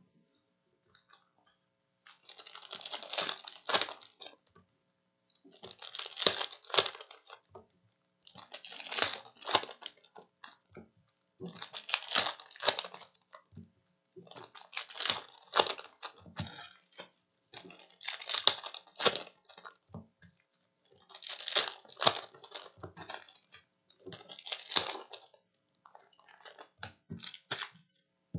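Foil basketball-card packs being torn open one after another: crinkly wrapper tearing in bursts of about two seconds, one roughly every three seconds.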